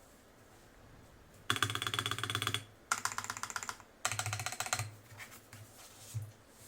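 Typing on a custom TKL mechanical keyboard with TTC Long Pole tactile switches and mixed PC and ABS Cherry-profile keycaps: three quick bursts of rapid keystrokes starting about a second and a half in, then a few scattered single presses.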